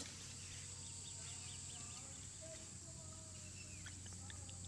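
Faint outdoor ambience: a steady high-pitched insect drone, with a few faint bird chirps in the first couple of seconds.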